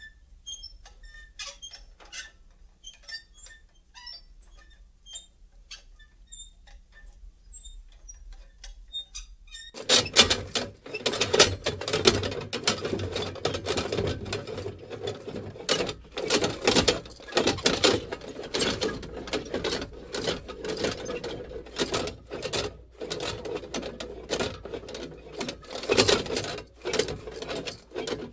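Small metal lantern being moved and shaken. For the first ten seconds or so there are only scattered faint clicks and ticks. Then, about ten seconds in, a louder, continuous run of metallic squeaking, creaking and rattling clicks begins.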